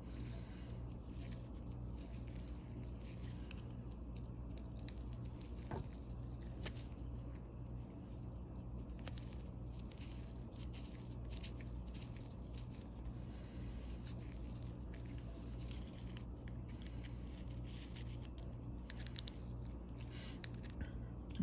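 Faint, scattered light clicks and scrapes of small steel parts being handled and fitted in the head of a vintage Williams ratchet during reassembly, over a steady low hum.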